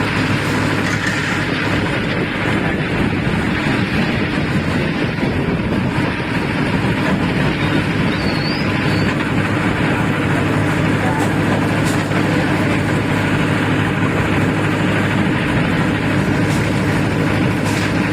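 Concrete mixer's engine running steadily with a constant low hum, the drum churning a concrete batch.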